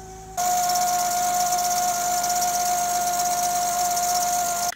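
Acura TSX's 3.5-litre J35 V6 idling, heard close up in the engine bay, with a steady high-pitched whine over it; it sets in suddenly about half a second in. The battery reads 11.7 V with the engine running: the alternator, which had been whining, has failed and is not charging.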